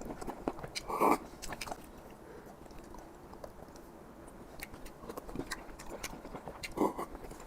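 Close-miked chewing of apple snail meat: small wet mouth clicks, with two short louder wet mouth sounds, one about a second in and one near the end.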